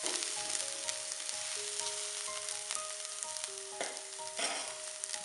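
Onions, green chilies and garlic sizzling steadily in hot coconut oil in a pan, with a couple of short knocks about four seconds in.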